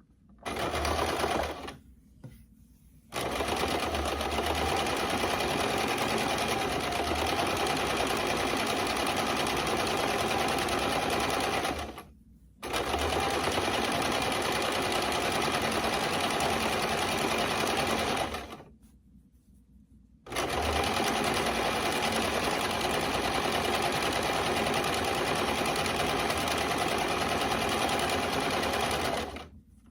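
Janome Hello Kitty sewing machine stitching: a short burst about a second in, then three long steady runs, each broken off by a pause of a second or two as the sewing stops and restarts.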